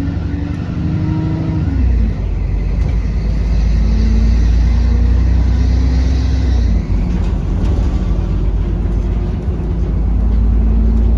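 London bus heard from on board while under way: a heavy low rumble from the engine and drivetrain, with a pitched whine that rises and then falls in the first two seconds and comes back as steadier tones for a few seconds after.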